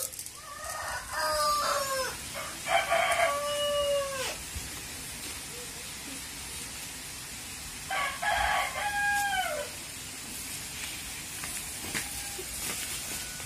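Rooster crowing three times, each crow a long held call that falls off at the end.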